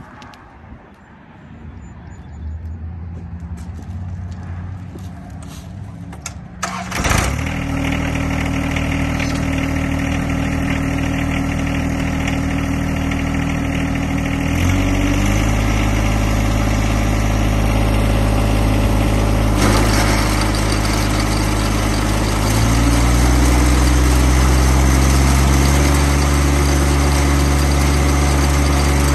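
John Deere 1025R compact tractor's three-cylinder diesel engine catching abruptly about seven seconds in, then running steadily. Its speed steps up twice, about halfway through and again about three quarters of the way in.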